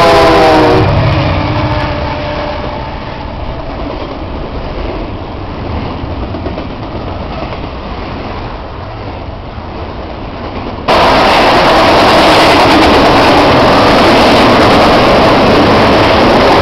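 CN double-stack intermodal freight train passing at speed: the locomotive horn chord falls in pitch and dies away in the first second, then the wheels of the container cars rumble and clatter steadily on the rails. About 11 seconds in, the rail noise jumps abruptly louder and brighter.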